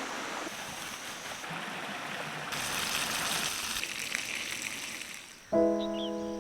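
Steady rushing outdoor noise, like running water or wind, that shifts abruptly twice. About five and a half seconds in, music starts with a loud held chord.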